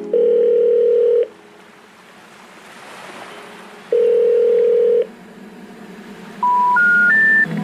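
Telephone line tones: two steady beeps, each about a second long and about three seconds apart, then three short tones stepping upward in pitch, the special information tone that comes before a 'number not in service' message. A faint hiss lies underneath.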